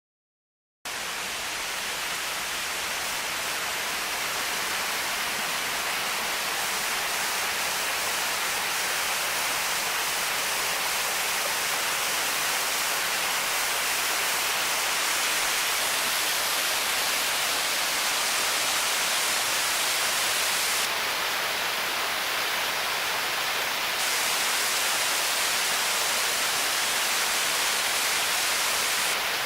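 Creek waterfall rushing in a steady, even roar of falling water, starting abruptly about a second in.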